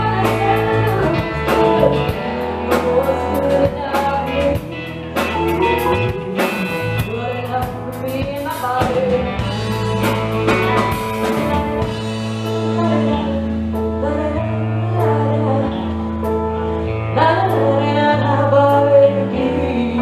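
Live rock band playing: a woman singing lead over electric guitars, bass and drum kit. The cymbals and drums ease back about halfway through, leaving bass, guitar and voice.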